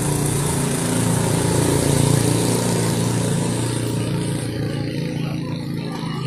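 An engine running steadily, swelling slightly about two seconds in, with a steady hum of even tones under a broad hiss.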